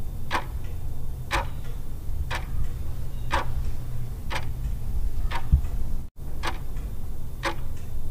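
Countdown-timer clock ticking sound effect, one tick about every second, over a steady low hum.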